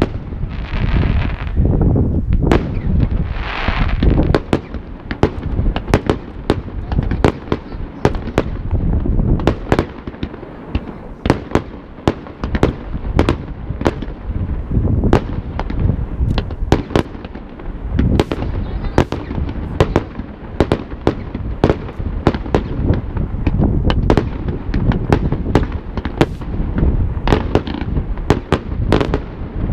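Aerial fireworks display: a rapid, continuous barrage of sharp bangs from bursting shells, several a second, over a steady low rumble.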